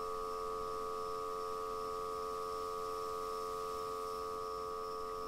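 A steady held tone, several pitches sounding together without change.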